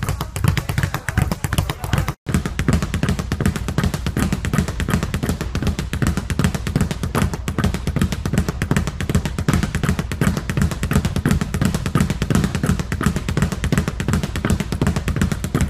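Speed bag being punched in a fast, steady rhythm of rattling thumps, with a brief break about two seconds in.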